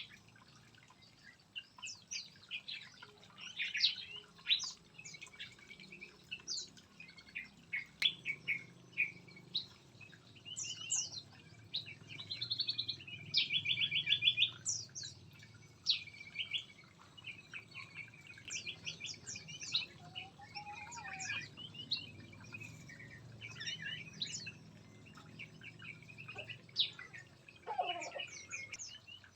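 Several small songbirds chirping and calling over one another in an aviary, short whistled notes overlapping all through, with a fast rattling trill about halfway through.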